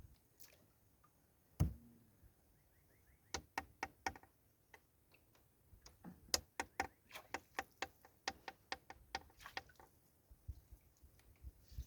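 A run of sharp light clicks and taps, roughly three a second, from about three seconds in until near the end, with a single duller knock a little before them.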